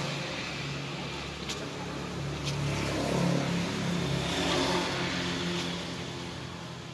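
A motor vehicle's engine passing on the road, growing louder about three seconds in and fading near the end.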